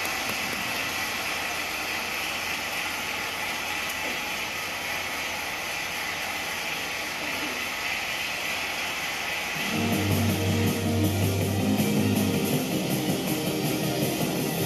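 Audience applauding, a steady even clatter of clapping. About ten seconds in, rock music with guitar and a pulsing bass line starts up and grows louder.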